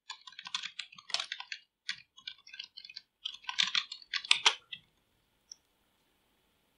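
Typing on a computer keyboard: a quick run of keystrokes for nearly five seconds, then it stops.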